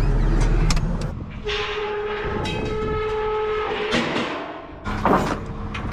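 A horn sounds one long steady note for about two and a half seconds. Before it, an engine's low rumble stops about a second in.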